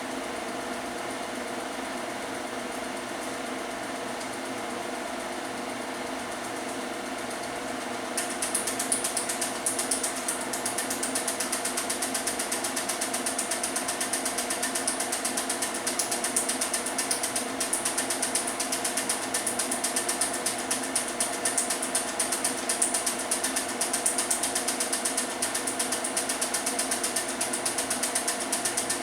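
Film projector running: a steady mechanical hum with a fast, even clatter and hiss that gets louder about eight seconds in.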